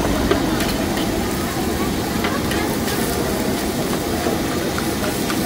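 Long metal spatula scraping and clacking against a wok as fried rice is stirred and tossed, with the rice sizzling over a steady low rumble.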